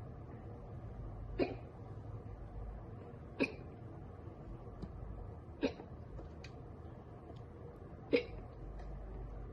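A girl hiccupping four times, one short sharp hiccup every two seconds or so, brought on by drinking soda.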